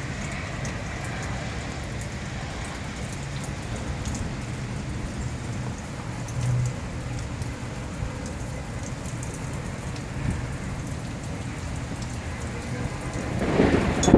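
Steady rain falling in a severe thunderstorm, with the patter of drops striking a surface. Near the end, the storm noise swells into a loud rumble.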